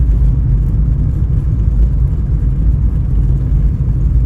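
Steady low rumble of a car driving along a road, engine and tyre noise heard from inside the car.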